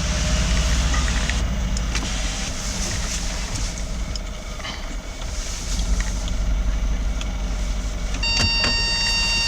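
A car running, a steady low rumble with a hiss over it; about eight seconds in a steady electronic tone sounds and holds, like a car's warning beep.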